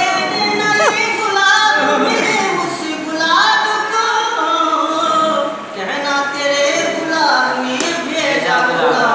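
A man singing a song unaccompanied, with long held notes that glide up and down in pitch.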